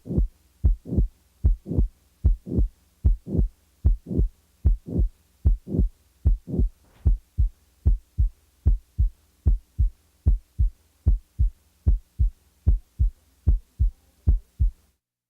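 Heart sounds on auscultation: a steady lub-dub rhythm of first and second heart sounds with a high-pitched, blowing late systolic murmur running up to the second sound, the murmur of mitral regurgitation typical of mitral valve prolapse. About halfway through, the murmur is removed, leaving clean first and second heart sounds.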